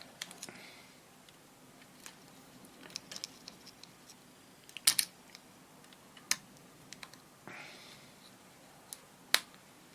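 Scattered sharp metallic clicks and snaps of a small hand tool working the solder tags off a radio's volume potentiometer, loudest as a double click about five seconds in and a single click near the end.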